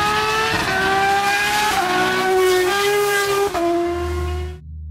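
The rally car's naturally aspirated Formula Renault 3.5 V6 accelerating hard, its note climbing and then dropping sharply twice as the paddle-shift gearbox changes up. Near the end the engine cuts off abruptly and a low steady hum takes over.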